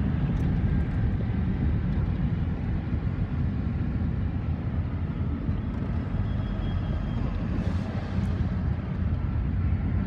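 Steady low road and tyre rumble of a car at highway speed, heard from inside the cabin.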